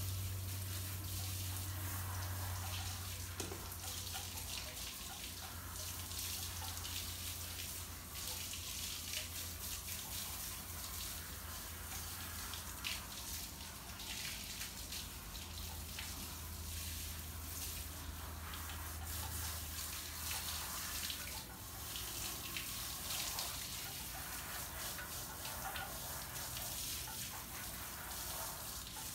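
Water from a garden hose spraying onto a dog's coat and splashing on brick pavers, a steady hiss with small splashes. A low steady hum runs underneath and stops about two-thirds of the way through.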